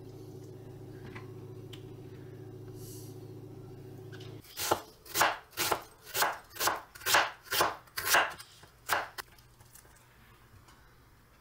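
A steady low hum that stops abruptly about four and a half seconds in, then a kitchen knife slicing through an onion on a wooden cutting board: about nine cuts, roughly two a second.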